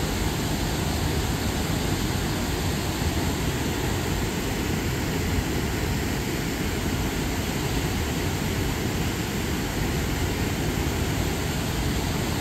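Steady rushing outdoor noise with no distinct events.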